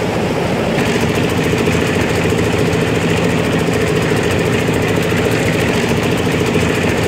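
Hyundai 220LC crawler excavator's diesel engine running steadily while the bucket digs soil for a drain, with a brighter, higher-pitched hiss joining in about a second in.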